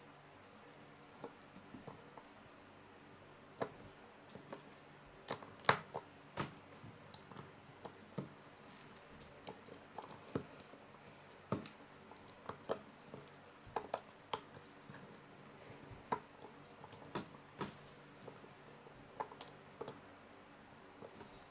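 Small plastic Lego bricks clicking and snapping as fingers press them onto a mini train model: scattered, irregular clicks, with the sharpest few about five to six seconds in.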